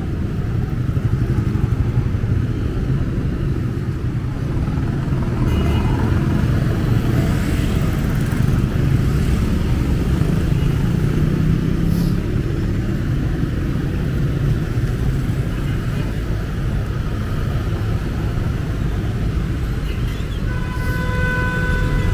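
City street traffic: motorcycles, cars and motorized tricycles run past with a steady engine and tyre rumble. Near the end a steady pitched tone sounds for about a second and a half.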